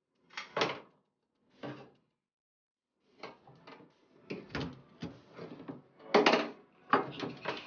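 Kitchen drawers and cupboard doors being handled: two short knocks at the start, then from about three seconds in a busy run of knocks and clatters, the loudest about six seconds in.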